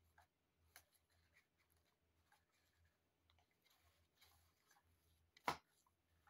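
Faint scratchy rustling of the cloth cover on an electronic cat toy as a cat paws at it, with one sharp knock about five and a half seconds in.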